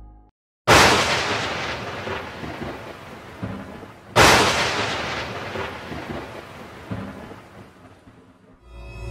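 Two thunderclaps about three and a half seconds apart, each a sudden crack that rolls away over a few seconds, used as a dramatic sound effect.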